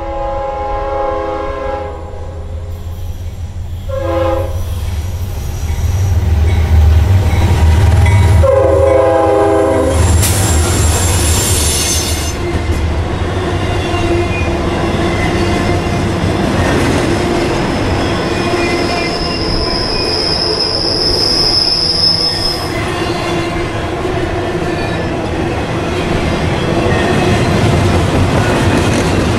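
CSX freight train's diesel locomotive horn sounds a chord three times, the last as the locomotives pass with a loud engine rumble. Then a double-stack intermodal train rolls by with steady wheel-on-rail noise and a high wheel squeal for a few seconds midway.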